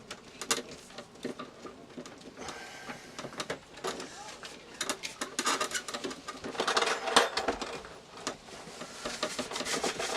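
Irregular clicks, taps and rubbing of hands working with tools, wires and panel parts during electrical wiring, busiest a little past the middle.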